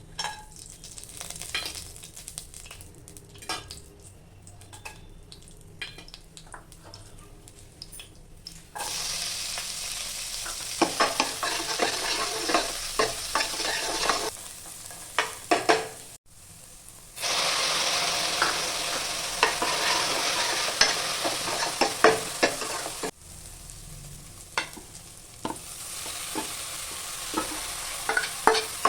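Food frying and sizzling in hot oil in a pan while a spoon stirs, with clinks and scrapes of the spoon against the pan. For the first nine seconds only light scraping is heard; then the sizzle comes in loud, cuts out briefly about sixteen seconds in, and drops back to quieter stirring around twenty-three seconds before rising again.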